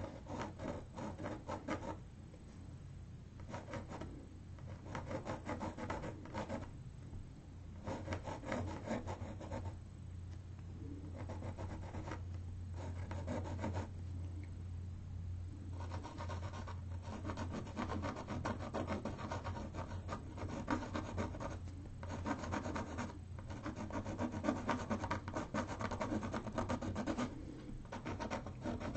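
Graphite pencil sketching on a canvas board: runs of quick back-and-forth scratching strokes, a second or several long, broken by short pauses, over a faint steady low hum.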